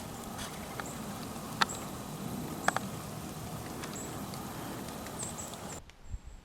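Water dripping from the trees: scattered sharp taps at irregular moments over a steady hiss. It cuts off abruptly near the end.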